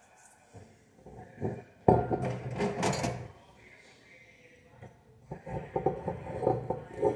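Kitchen utensils clattering, then a knife scraping and cutting around the foil capsule on a wine bottle's neck.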